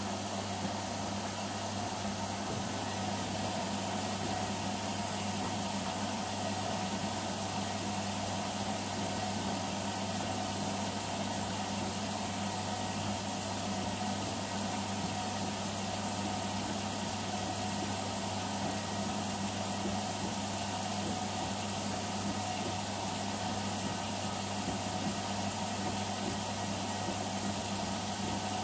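Bendix front-loading washing machine on its wash, the drum turning a load of laundry in water, with a steady motor hum.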